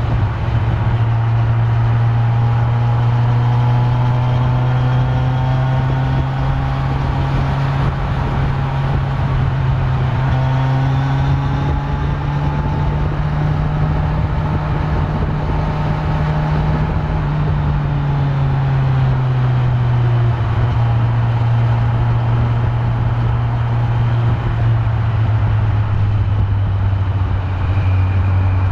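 Kawasaki Z900's stock inline-four engine running steadily under way, the engine note rising a little through the middle and easing back down about two-thirds of the way in, over steady wind and road noise.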